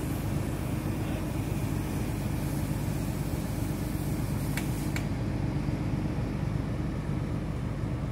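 Engine of a crawler-mounted water-well drilling rig running steadily with a low, evenly pulsing drone. Two short sharp clicks about halfway through.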